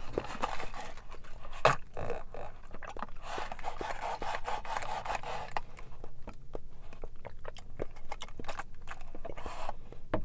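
A wide plastic boba straw scraping up and down through a sealed cup lid while strawberry milk tea and tapioca pearls are sipped through it. Many small wet clicks in the second half as the pearls are drawn up and chewed.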